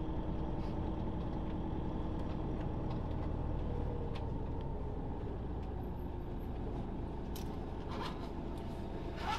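Motorhome engine and road noise heard from inside the cab while it drives slowly, a steady low rumble. A few short clicks come in the last two seconds.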